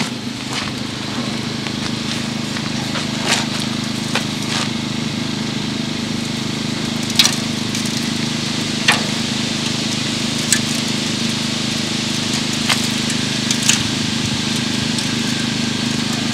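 Light, scattered clicks and taps as a seasoning shaker and a beef roast are handled on a portable propane grill's metal grate, over a steady low hum.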